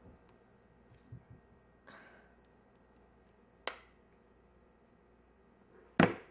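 Two sharp clicks in a quiet room, one about halfway through and a louder one near the end, with a soft rustle about two seconds in.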